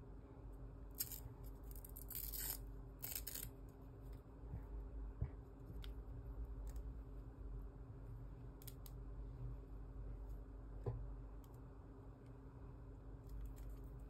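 Faint handling noise as a coiled black USB cable is unwound and handled over plastic packaging: a few short crinkly rustles about one to three and a half seconds in, then occasional light clicks and taps.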